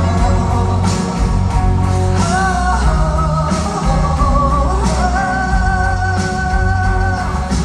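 Live rock band playing in a concert hall: a woman singing over keyboards, electric bass and drums, with long held notes and regular drum hits.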